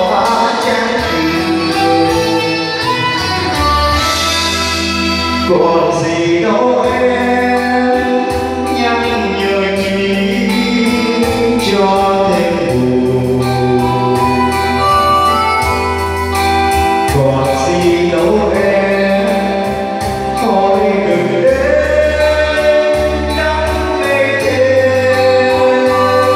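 A man singing a Vietnamese song into a karaoke microphone over a backing track with a steady beat.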